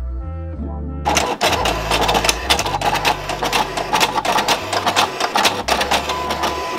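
Printer running a print job of sticker sheets: a dense mechanical clatter full of rapid clicks that starts about a second in.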